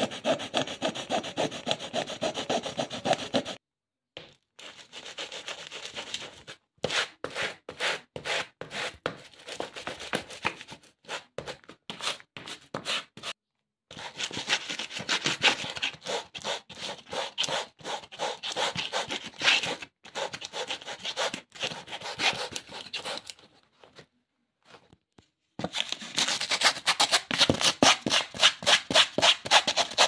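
Fabric ballet flat being scraped hard against rough surfaces in fast back-and-forth strokes, a rasping, sawing scrape that wears down the shoe. The scraping stops dead for short silences a few times.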